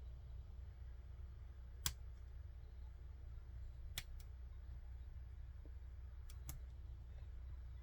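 A bent steel safety pin probing inside a laptop's 3.5 mm audio jack, giving a few sharp clicks, the loudest about two seconds in and a close pair near the end, over a low steady hum.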